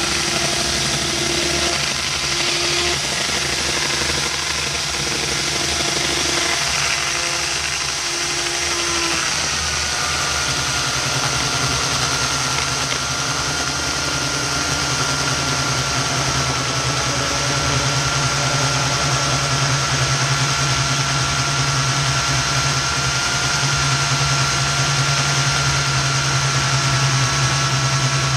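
Makita chainsaw running continuously while cutting into a dead tree trunk. About ten seconds in, the sound changes and settles into a steadier, even tone.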